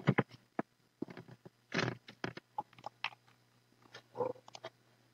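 Irregular, scattered clicks and taps of a computer keyboard and mouse.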